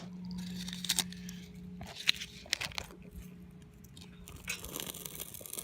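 Scattered crunching and clicking sounds of close handling, with wind rushing on the microphone near the end.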